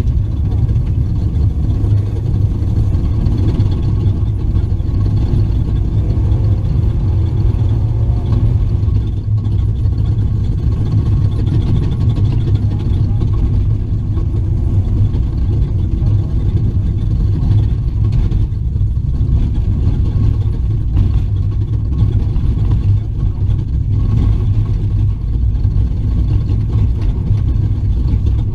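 H&M-built Raptor off-road race truck running steadily at speed, heard from inside the cab as a continuous low engine and drivetrain rumble.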